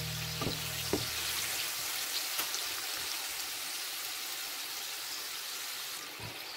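Battered eggplant sticks sizzling and crackling in hot sunflower oil in a frying pan, with a few louder ticks in the first couple of seconds.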